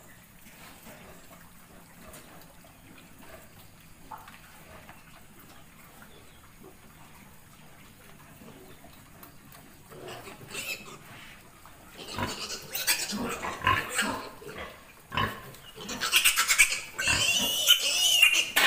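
Domestic piglets grunting, faint at first and louder from about twelve seconds in. Near the end there is loud, high-pitched squealing as a piglet is held up by hand.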